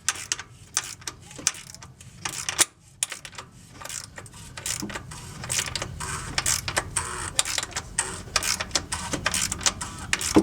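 Oil filter housing being screwed back on by hand: a run of irregular clicks and scrapes as the cap is turned on its threads.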